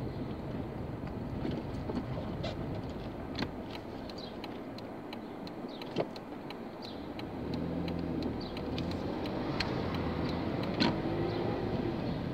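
Car engine and road noise heard from inside the cabin while driving slowly, with scattered small clicks and knocks. About halfway through, a steady engine hum with a slowly shifting pitch comes up.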